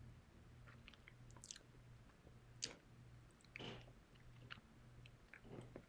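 Faint chewing and small mouth smacks of a person eating a piece of communion bread, a few soft clicks scattered through it.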